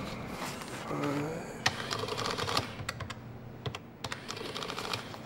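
A run of light, irregular clicks and taps like typing, bunched in two spells, with faint voices under them.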